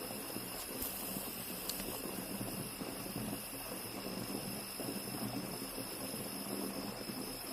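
Steady background hiss with a thin, high, steady tone running through it and a couple of faint ticks.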